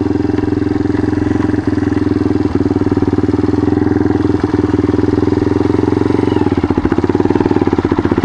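Yamaha XT dual-sport motorcycle's single-cylinder four-stroke engine idling steadily with an even firing beat while the bike stands at the edge of a creek ford, the beat a little more pronounced near the end.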